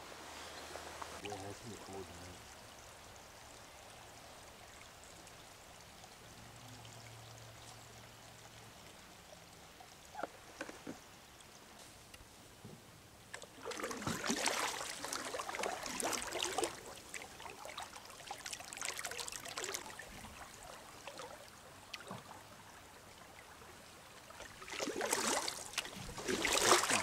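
Water splashing and trickling around a canoe floating a stream, in three spells from about halfway in, over a low steady stream sound.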